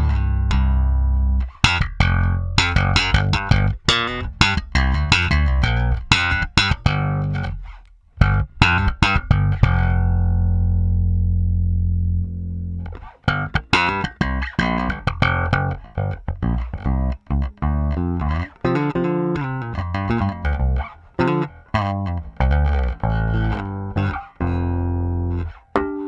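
Japanese-made Fender Jaguar Deluxe electric bass played solo in a run of sharply attacked notes. Near the middle one low note is held for a couple of seconds before the quick notes resume.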